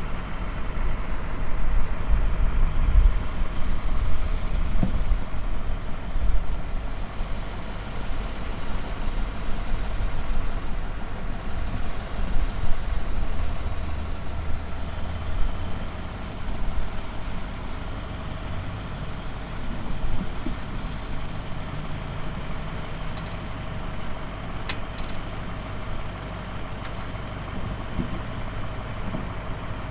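Diesel engine of a self-propelled forage chopper running steadily while the machine is driven slowly into a building. It runs louder for about the first half, then settles lower.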